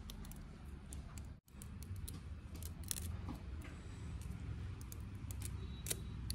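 Kitchen scissors snipping through a small fish, a scattering of short sharp metallic clicks and snips over low steady background noise. The sound drops out for an instant about a second and a half in.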